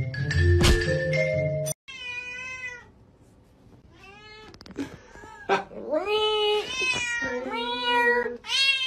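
Background music with a tinkling melody, cut off abruptly, followed by a tabby cat meowing: about five long, drawn-out meows that rise and fall in pitch, the later ones louder and closer together.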